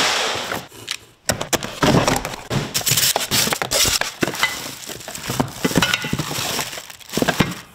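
Cardboard packaging and plastic wrap rustling and crinkling as parts are unpacked from a large shipping box, with sharp scrapes and taps of cardboard, broken by a short lull about a second in.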